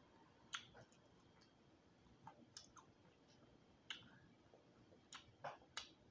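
Quiet eating sounds of crispy roasted quail: scattered sharp clicks and crackles, about eight of them at uneven intervals, as the meat is chewed and picked apart by hand.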